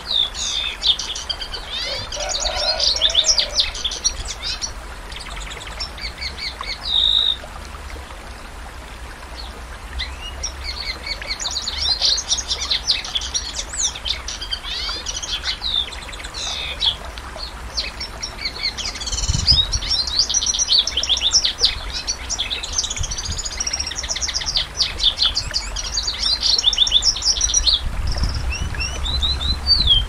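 Domestic canary singing long runs of rapid, high trills and chirps in three stretches, with a quieter gap of a few seconds early on broken by one held whistled note. A low steady hum sits underneath.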